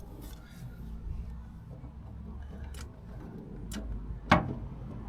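Hand-squeezed caulking gun in use: a few sharp clicks from its trigger and plunger, the loudest about four seconds in, over a low steady hum.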